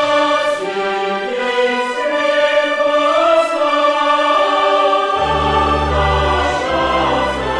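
Orchestral music with a choir singing long held notes; a deep bass comes in about five seconds in.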